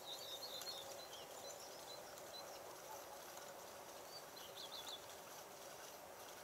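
Small birds chirping: quick, high twittering calls, once in the first second and again around the fifth second, over faint steady outdoor ambience.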